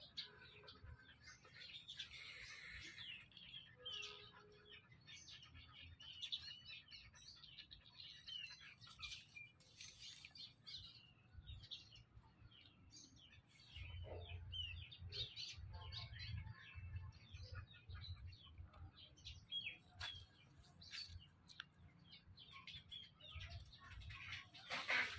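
Faint chirping of small birds: many short calls in quick succession. A low rumble comes in about halfway through.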